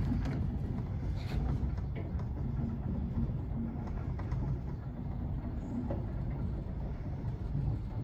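Beninca Bison electric sliding gate motor running, driving the wooden sliding gate along its track with a steady low rumble. The gate is travelling again after the obstacle has cleared the laser safety zone.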